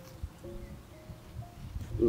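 Soft background music: a few held notes stepping up in pitch.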